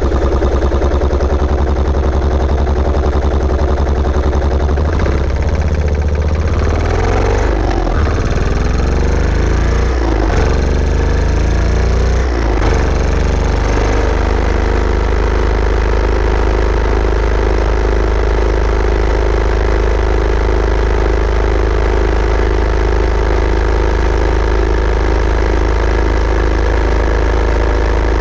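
Yamaha SR400's single-cylinder engine running, its pitch rising and falling for several seconds partway through, then settling to a steady note.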